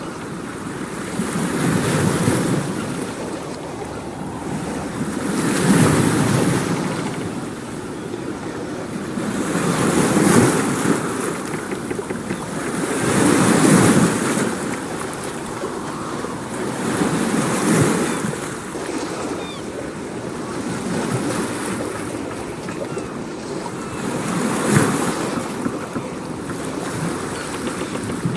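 Waves washing in, one swell about every four seconds, each rising and then falling away.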